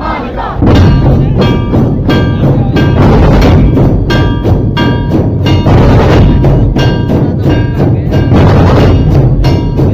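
Loud procession music: a heavy drum beat with repeated struck, ringing bell-like notes on a steady pulse, starting about half a second in.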